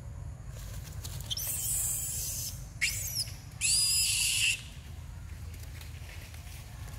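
Young long-tailed macaques screaming: a harsh high shriek about a second in, then two short, piercing squeals whose pitch arches up and down, about three and four seconds in, over a low steady rumble.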